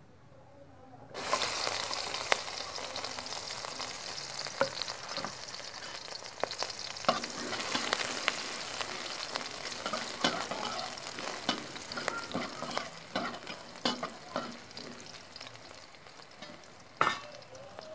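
Sliced garlic, shallots and green chilies hit hot oil in a wok about a second in and sizzle steadily. A spatula stirs and scrapes them around the pan, with scattered clicks and knocks and one louder knock near the end.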